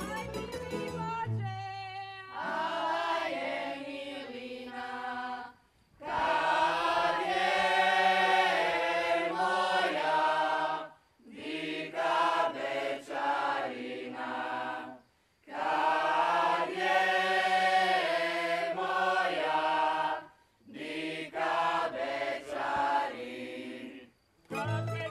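Slavonian folk singers singing together unaccompanied, in phrases of a few seconds with short breaths between them. A tamburica plays briefly before the voices come in.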